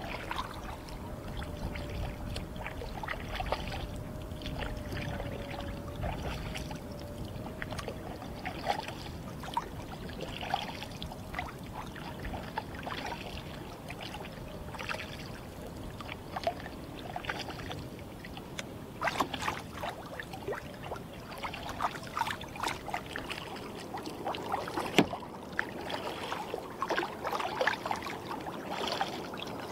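Small waves lapping and splashing against a kayak's hull, with many irregular little splashes and drips. A low rumble underneath drops away near the end.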